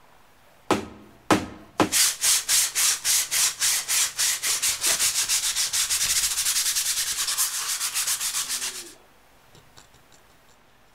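Small needle file rasping the edges of a thin plywood cutout: two single strokes, then a quick, even run of back-and-forth strokes, about five a second, that stops abruptly.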